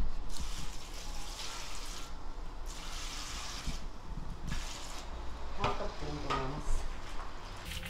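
Fish sauce poured from a metal bowl onto shredded radish in a plastic basin: a splashing, trickling pour lasting about five seconds.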